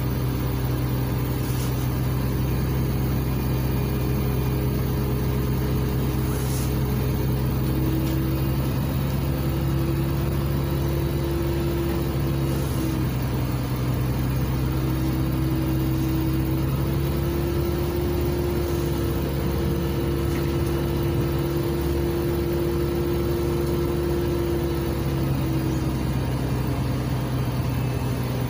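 Cabin noise of a LiAZ 5292.67 city bus under way, heard from inside: its YaMZ-53624 CNG engine and drivetrain hum steadily. A higher whine comes in about eight seconds in and fades out near the end.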